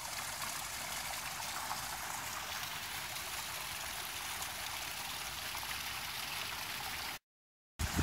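Small waterfall splashing over rock ledges into a shallow creek: a steady, even rush of running water that cuts out suddenly about seven seconds in.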